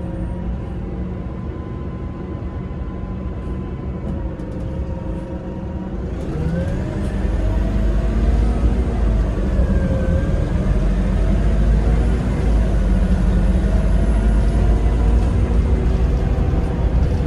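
Alexander Dennis Enviro300 single-deck bus's diesel engine running steadily. About six seconds in it pulls away: the engine note gets louder and rises, dipping and climbing again several times as the gearbox changes up.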